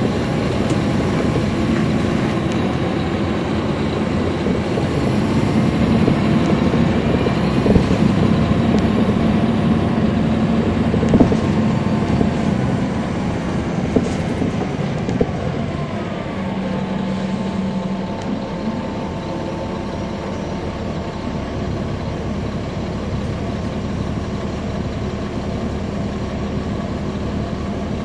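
Caterpillar C13 ACERT six-cylinder diesel of a 2009 NABI 416.15 transit bus with a ZF Ecomat automatic transmission, heard from on board while under way. The steady engine drone is louder through the first half, eases off a little past the middle, and a steady higher tone then holds over it.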